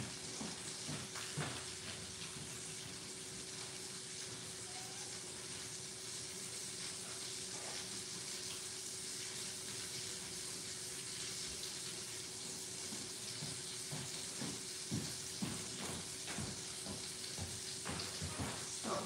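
Steak frying in butter in a pan on a gas stove: a steady sizzling hiss with scattered small pops and crackles. A faint steady hum runs underneath.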